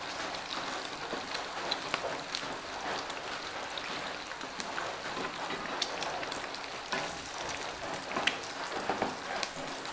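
Eggs frying in hot oil in a pan with bacon and ham, sizzling with a steady crackle of small pops.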